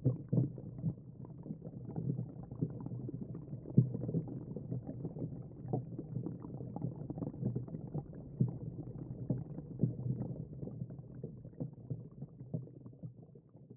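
Muffled underwater sound through a GoPro's waterproof housing: a low rumble of moving water with frequent irregular dull knocks and clicks. It fades out near the end.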